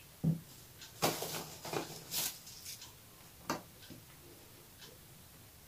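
Quiet taps and rustles as chocolate sandwich cookies are set down one by one on plastic film in a glass baking dish, with a short cluster of louder rustles between about one and two and a half seconds in.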